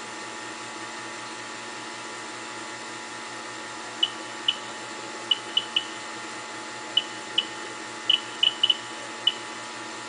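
A neutron counter on a boron-10 detector tube sounds irregular short, high beeps from about four seconds in, each one a detected neutron from the running fusor, picked up with the tube in its mineral-oil moderator. A steady hum runs underneath.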